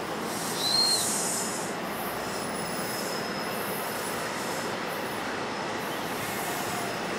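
NJ Transit multilevel commuter train running past at speed: steady rumble and rush of steel wheels on rail, with a brief high wheel squeal about a second in.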